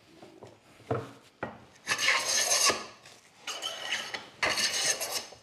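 Cheap metal bench plane scraping and chattering along the edge of a hardwood board in three rough strokes, after a couple of light knocks. The woodworker puts the chatter down to a thin, poorly supported blade that flexes, digs into the harder timber and bounces back out.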